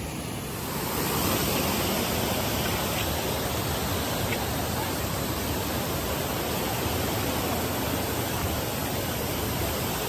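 Steady rush of a waterfall and its rocky stream in heavy monsoon flow: a dense, even hiss that swells slightly about a second in.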